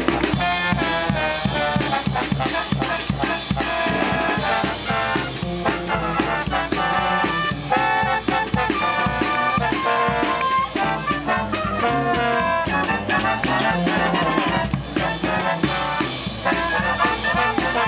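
Marching brass band playing: trombones, trumpets and a sousaphone carrying the tune over a steady beat of snare and bass drum.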